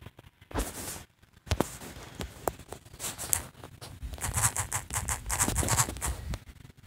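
Fingers tapping and rubbing on a phone's touchscreen close to its microphone: a run of quick taps and scratchy brushing, densest from about three seconds in.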